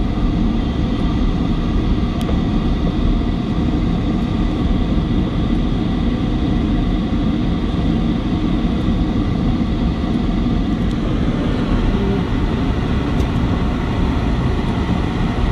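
Steady vehicle engine and road noise heard from inside a moving cabin.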